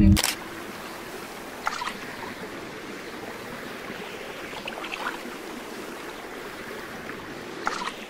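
Steady hiss of running water, with a few faint clicks about two and five seconds in.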